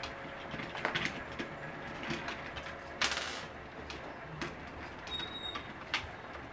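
Small handling clicks and knocks from the plastic and metal parts of a low-cost ceiling fan as its blade is taken off, with a brief scraping rustle about three seconds in.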